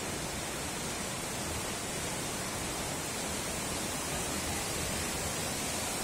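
Steady rushing of a mountain waterfall plunging into a rock canyon, mixed with the stream tumbling over boulders close by.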